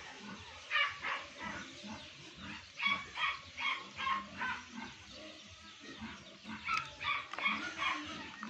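A dog barking in short runs: a couple of barks about a second in, a quick series around three to four seconds in, and more near the end.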